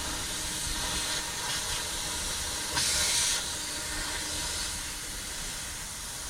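Steady rushing hiss of air from dryer-vent cleaning equipment forcing lint out of the vent, with a brief louder blast of air about three seconds in.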